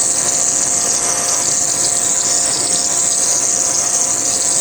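A machine running steadily with a loud hiss and a few steady whining tones. It cuts off suddenly near the end.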